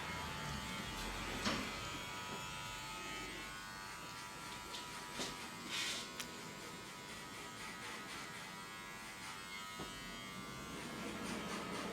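Electric hair clippers running steadily with a buzz, cutting hair. A few short clicks and a brief hiss about six seconds in.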